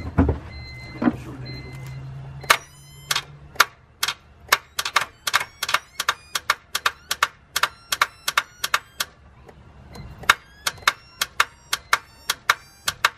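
Honda Civic's starter clicking rapidly, about four to five clicks a second with a short break near the middle, without the engine turning over: the battery is weak and the engine is seized. A repeating beep and a low hum come before the clicking starts.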